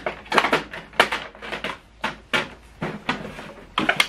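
Quick plastic clicks and knocks, several a second, from the paper tray and its cover on an HP OfficeJet Pro 8135e printer being handled and fitted back into place. A louder clack comes near the end.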